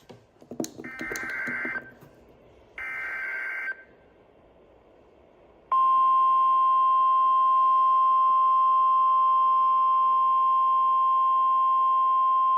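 Two faint, short bursts of digital alert data from a NOAA Weather Radio broadcast (the SAME header), then after a couple of seconds' silence the loud, steady single-pitch warning alarm tone starts and holds. It is the tone that switches on weather alert receivers, sounded here for a test of the warning device.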